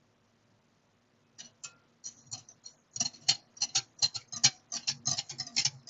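Quick, irregular light clicks and taps, several a second, starting about a second and a half in.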